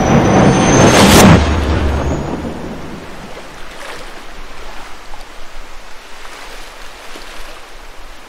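Surf on a sandy beach: a loud crashing rush that peaks about a second in and dies away over the next two seconds, then a softer, steady wash of waves.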